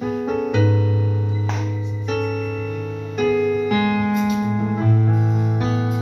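Electronic keyboard playing slow, sustained chords through PA speakers, moving to a new chord about every second.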